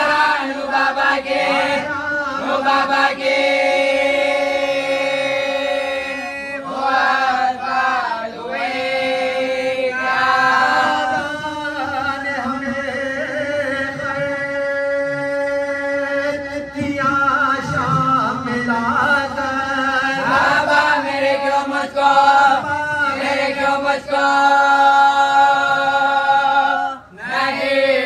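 Unaccompanied chanted lament: a voice singing a mournful elegy in long held, wavering notes, pausing briefly for breath now and then.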